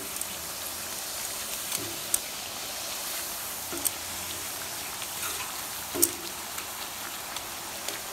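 Duritas (wheat-flour snack rounds) deep-frying in hot oil, a steady high sizzle. Metal tongs click sharply against them and the pan a few times, loudest about six seconds in.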